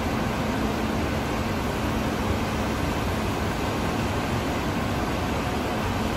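Steady hum and hiss of industrial machinery or ventilation in a large steel factory hall, with a faint constant low drone and no strikes or breaks.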